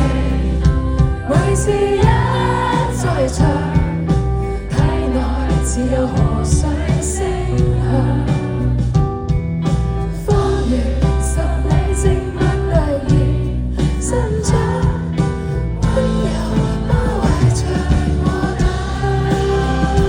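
A band playing a song with a singing voice, the music steady and loud throughout.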